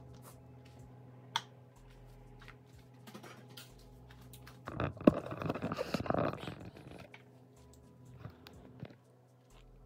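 Kitchen handling noise close to the microphone: a light click, then a couple of seconds of loud rustling and knocking with one sharp knock, as clothing brushes right against the camera, followed by a few small clicks. A steady low hum sits underneath.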